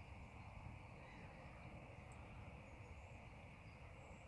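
Near silence: faint lakeside morning ambience with a steady low background hiss and a few faint, brief distant bird calls.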